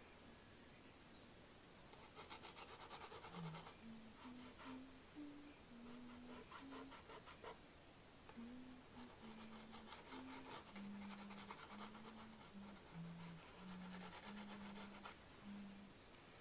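Faint scratching of a conte stick drawn across pastel paper, in several bursts of quick short strokes. Under it runs a slow line of low held notes stepping up and down in pitch.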